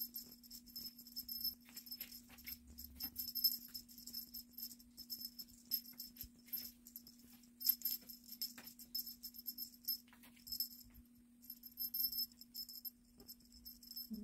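A small bell jingling in quick, irregular shakes, pausing briefly now and then, over a steady low hum.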